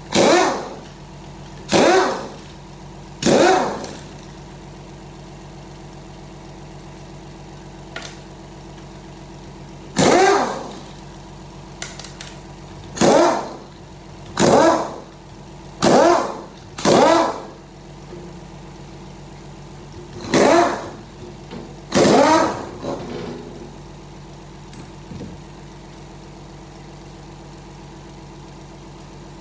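Power wrench spinning out the valve body bolts of a VW 09G automatic transmission: about ten short whirring bursts, several in quick succession, with gaps of a few seconds between groups.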